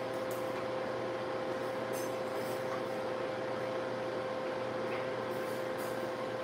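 Steady whirring hum of a kitchen appliance's motor or fan, with one constant mid-pitched tone running through it. A few faint clinks come near the middle and again near the end.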